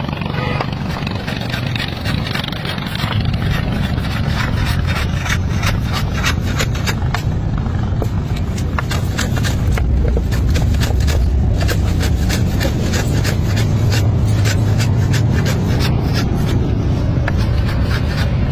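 Scraping on wood: a quick, irregular run of scratchy strokes over a low, steady rumble.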